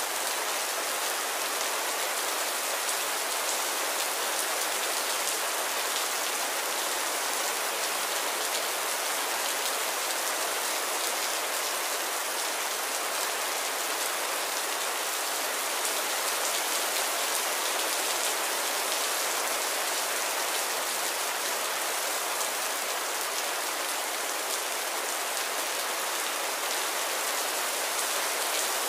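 Heavy rain falling steadily: a dense, even hiss of drops with no let-up.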